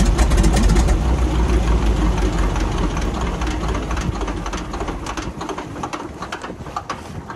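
An engine running with a low rumble that grows steadily quieter.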